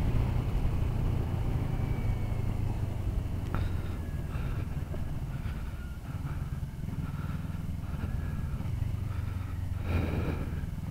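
Motorcycle engine running at low revs in slow traffic, a steady low drone that eases off a little about halfway through and picks up again.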